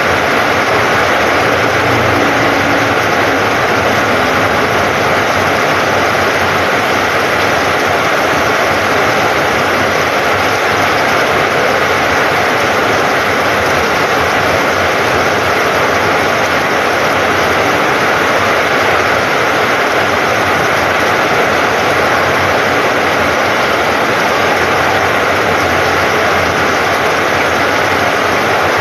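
Heavy downpour: loud, steady rain pouring onto flooded ground and a corrugated metal roof.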